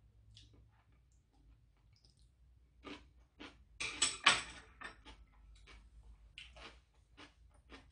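Close-up chewing and wet mouth clicks as a mouthful of soup meat is eaten, with a short clatter of chopsticks being set down on the table about four seconds in, the loudest sound.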